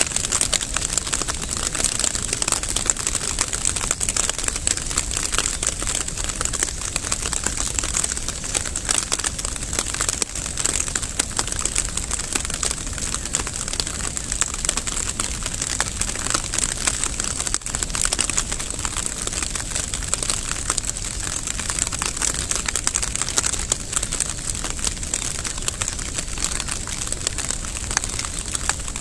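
Rain falling steadily: a dense, even patter of many small drops.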